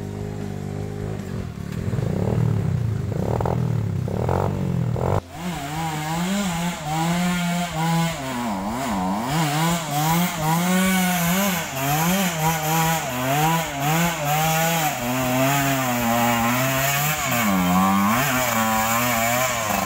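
Trail motorcycle engine revving: running fairly steadily with a few brief revs, then, after an abrupt change about five seconds in, revving hard with the pitch constantly rising and falling as the throttle is worked.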